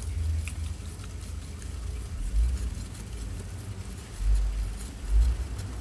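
Low rumble of wind buffeting the microphone, surging louder three times, with faint clicks and scrapes as a charred bamboo tube of cooked rice is worked open by hand.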